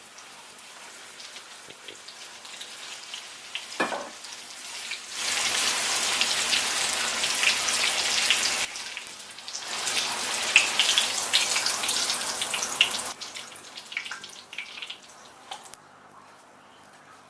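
Food sizzling and crackling in hot oil, loudest in two stretches of a few seconds each that start and stop abruptly, with quieter scattered crackles in between.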